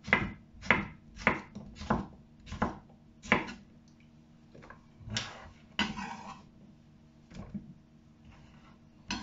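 Kitchen knife dicing cucumber on a wooden cutting board: six sharp chops a little over half a second apart. About five seconds in comes a longer scraping sound as the cubes are pushed off the board, then a few light taps and another chop near the end.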